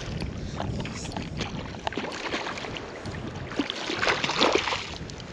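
Shallow water splashing and sloshing in uneven bursts, loudest about four seconds in, over a low rumble of wind on the microphone.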